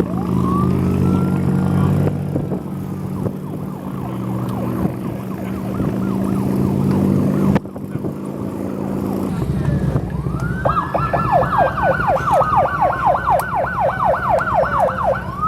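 Emergency vehicle siren: a slow wail near the start, then about ten and a half seconds in it switches to a fast yelp of about five sweeps a second. A vehicle engine runs steadily underneath during the first half and cuts off suddenly about halfway through.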